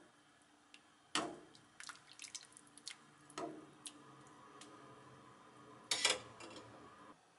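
A ladle dipping into and lifting through a pan of simmering chicken broth, skimming it: liquid splashes and pours back several times, with small drips and light ticks between. The loudest splash comes near the end.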